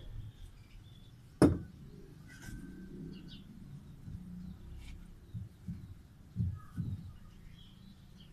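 Bricklaying by hand: bricks being handled and set, with one sharp knock about a second and a half in and several dull knocks later on. Faint bird chirps in the background.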